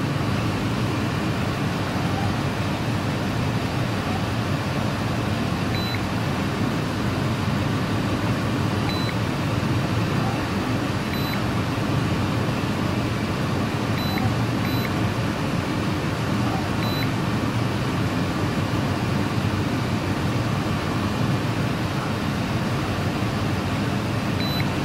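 Short, high key-press beeps from an Innova 5610 scan tool, seven of them at uneven gaps, over the steady low rumble of a car engine idling.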